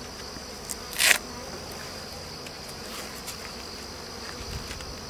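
Steady high insect buzz of bees flying around the hives. About a second in, a brief loud rustle of bee-suit fabric as the suit and veil are pulled on.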